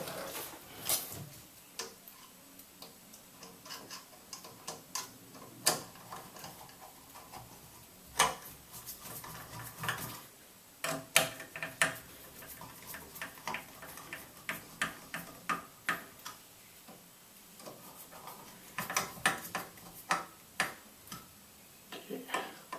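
Irregular sharp clicks and taps of a screwdriver turning screws in to fasten a shower valve's trim plate, coming in quick runs now and then.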